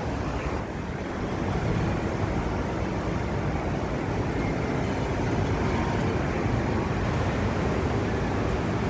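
Steady rush of wind and breaking surf, with gusts buffeting the microphone.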